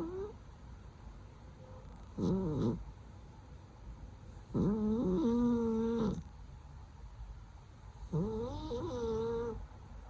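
Cat snoring: three drawn-out snores about three seconds apart, each with a clear held pitch. The middle one is the longest.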